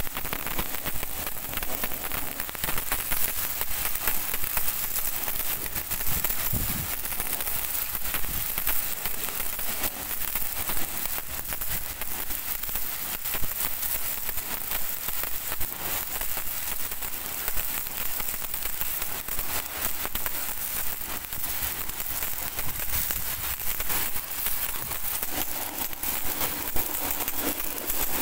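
Pressure washer jet spraying onto steel brake drums and a wheel rim: a steady hiss with rapid spattering of water on metal and concrete.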